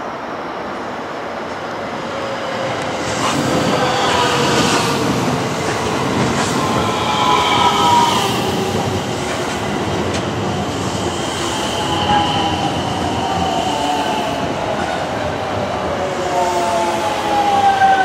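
JR West 225 series electric train running into a station and braking: wheels rumbling on the rails under a whine that slides down in pitch as the train slows, growing loudest near the end as the cars draw level.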